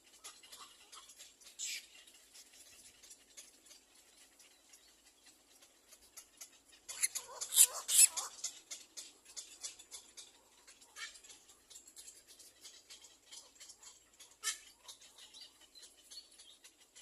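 Little black cormorant chicks making short, high squeaky calls mixed with scratchy ticks, in scattered bursts, the loudest cluster about seven to eight seconds in.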